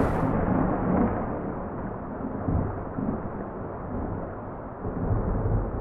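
Thunder: a loud clap, then long muffled rumbling that rises and falls, swells again near the end and cuts off suddenly.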